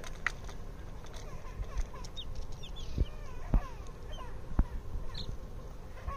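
A group of baby chicks peeping, with many short high chirps and some lower sliding calls. Three sharp knocks come in the middle and are the loudest sounds.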